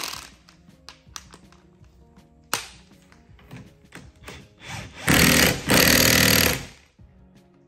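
Cordless impact wrench hammering in two bursts of about a second each, driving a nut on an outboard's hydraulic steering cylinder as it goes back together. A sharp click at the start and a few light taps come before it.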